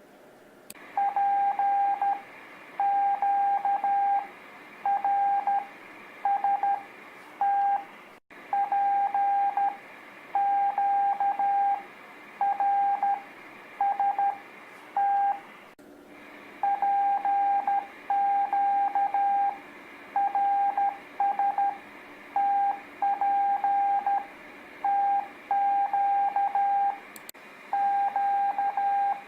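Morse code (CW) practice tone: a single steady beep keyed on and off into dits and dahs, sending the letters P, Q, R, S and T mixed together, one letter after another with short gaps between them.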